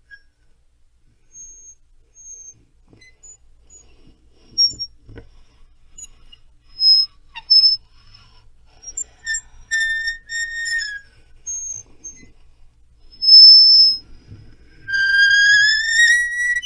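Rubber duck toy squeaked over and over: a series of short, high squeaks, then longer squeaks, ending in a long squeak that rises in pitch.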